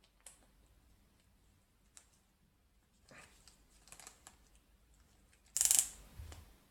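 Small plastic clicks and taps of a 1/6 scale action figure's parts being handled and fitted, with a short, louder rustle a little before the end.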